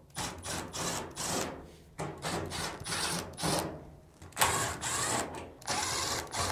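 Milwaukee Fuel cordless driver backing out the screws that hold the front drum assembly of a Samsung dryer, running in several short stop-start runs.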